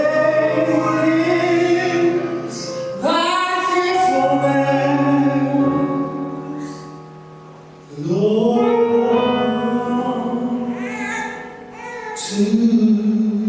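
Gospel singing in long held notes, in four phrases that each begin with a short upward swoop into the note.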